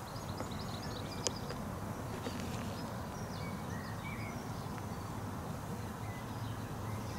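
Outdoor ambience: steady low background noise with faint, scattered bird chirps, and a single light click about a second in.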